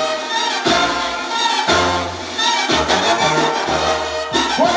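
Brass band music playing at full volume, brass instruments over a bass line that steps from note to note.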